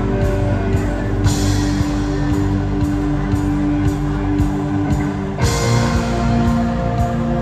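Live rock band playing through an arena PA: electric guitar, keyboards, bass and drums over a steady beat. There is a cymbal crash about a second in, and another a little past five seconds, where the chords change.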